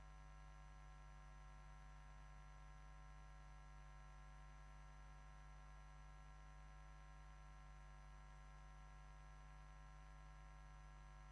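Near silence: only a faint, steady electrical hum with a low mains buzz, unchanging throughout.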